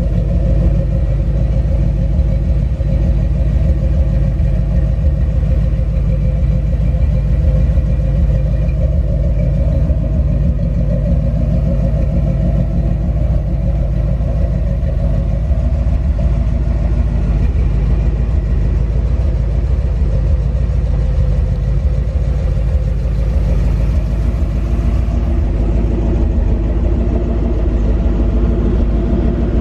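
1969 Ford Bronco's 351 H.O. V8 idling steadily through its Flowmaster dual exhaust.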